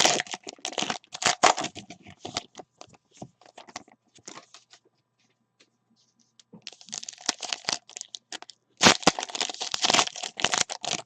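Foil trading-card pack wrappers crinkling and tearing, with cards being handled. The crackling comes in two stretches, split by a near-silent lull of about a second and a half just past the middle.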